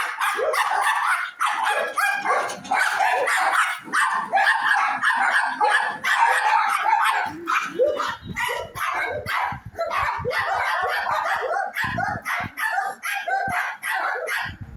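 Several dogs barking and yipping without a break, their short barks coming thick and fast and overlapping.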